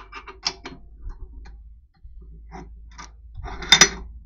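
Metal clicking and clinking of tools, steel clamps and a workpiece being handled on a cast-iron drill-press table, with a sharper clatter about three and three-quarter seconds in. A low steady hum runs underneath and drops out briefly about two seconds in.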